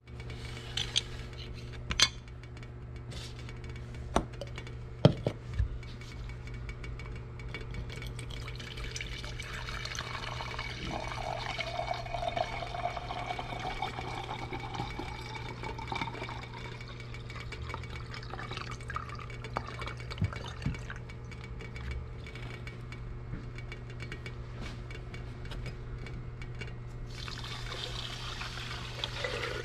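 Acetone poured from a bottle into a glass beaker, the pour rising steadily in pitch as the beaker fills, after a few light clinks of glassware. Near the end there is a second short, splashy pour from the beaker into a larger glass beaker. A steady low hum runs underneath.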